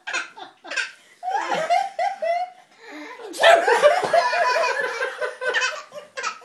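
Laughter: a run of short laughing bursts that drop in pitch, then louder, longer laughter from about halfway through.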